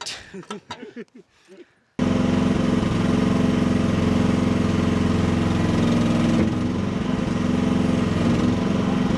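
Small excavator's engine running steadily, cutting in abruptly about two seconds in after a moment of faint talk, with a slight easing a little past the middle.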